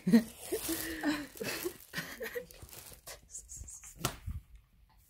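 Low muttered voices at first, then fabric rustling and a few sharp clicks as clothes on hangers are pushed about on a closet rail.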